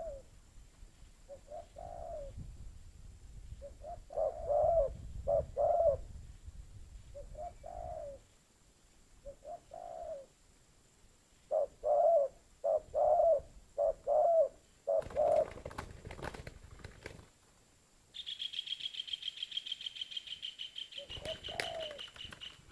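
A dove cooing in repeated short phrases of low notes. About fifteen seconds in there is a brief spell of clicks and rustling, then a rapid high-pitched ticking for a few seconds near the end.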